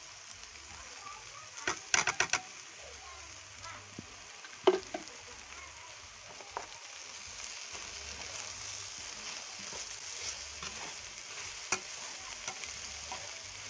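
Chopped okra frying in oil in a pot, a steady sizzle, with clinks and scrapes of a spoon against the pot as ground crayfish and pepper are added and stirred in. A quick run of clinks about two seconds in and one sharp knock a few seconds later are the loudest sounds.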